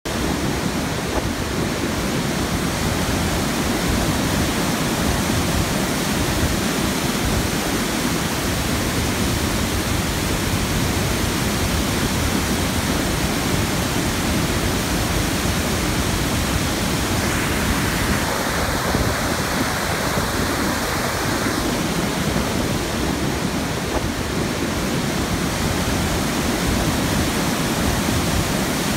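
Floodwater rushing over a dam spillway: a steady, even rush of water noise. A brighter hiss swells for a few seconds past the middle.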